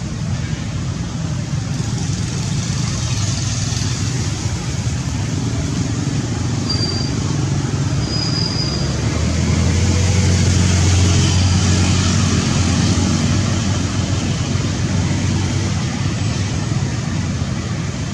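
Steady outdoor rumble like distant road traffic, swelling for a few seconds near the middle as if a vehicle passes, with two brief high chirps a little before that.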